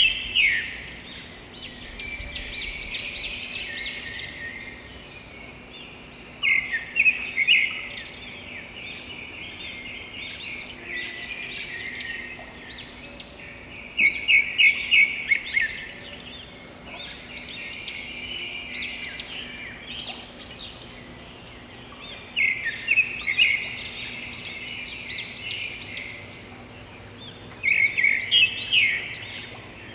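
A songbird singing: about every six to eight seconds a loud phrase of quick repeated notes, each running on into a few seconds of quieter, higher twittering.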